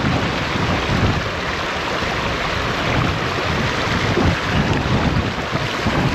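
Fast, shallow river water rushing and splashing over rocks close to the microphone, as a steady loud wash.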